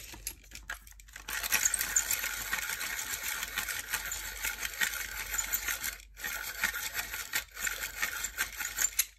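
Close handling noise from a wooden colour pencil, a busy, dry, crackly sound that starts about a second in and breaks off briefly twice near the end.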